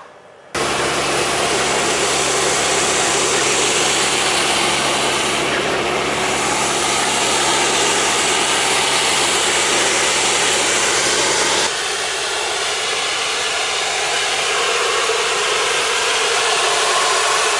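A firefighting medium-expansion foam nozzle sprays foam in a loud, steady rush, with a steady engine hum beneath it. The sound cuts in abruptly about half a second in and changes slightly about two-thirds of the way through.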